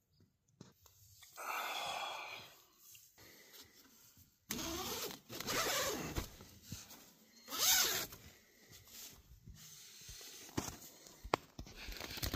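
A nylon tent's door zipper being pulled and the tent fabric and mesh rustling in several scratchy bursts as someone moves through the door of an REI Half Dome 2 tent, with a few light knocks near the end.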